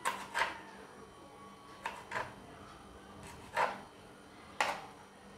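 Kitchen knife chopping tomato on a plastic cutting board: about six irregular, sharp knocks of the blade hitting the board.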